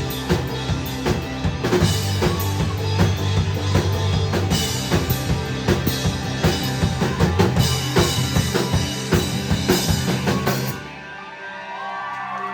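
Live rock band playing a drum-heavy passage, kick, snare and rimshots driving over a steady bass line. The music stops abruptly about eleven seconds in, leaving crowd noise and a few shouts.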